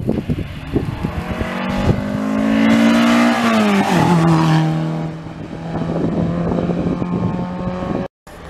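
Ford Escort Mk2 rally car's engine under hard acceleration, its note climbing as it approaches, then dropping sharply in pitch as the car goes past about four seconds in. It holds a steady lower note as it pulls away, and the sound cuts out briefly near the end.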